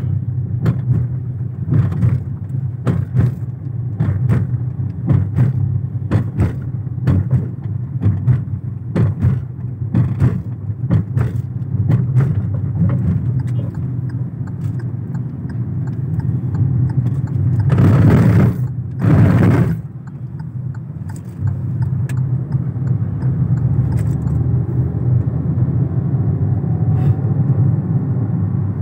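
A car being driven: a steady low rumble of engine and tyres, with frequent short clicks and knocks, and a loud rushing noise for about two seconds a little past the middle.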